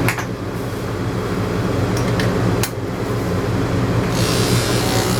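Electric dog grooming clippers with a 7 blade running with a steady hum, with a couple of short clicks; from about four seconds in a louder hiss joins as the blade works through the coat.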